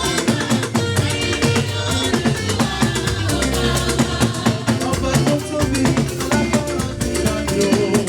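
Church hymn music with drums and shakers keeping a steady beat.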